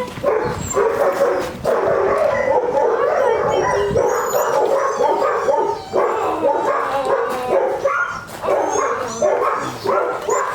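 Shelter dogs barking and yipping in a steady, overlapping chorus, with some whining mixed in.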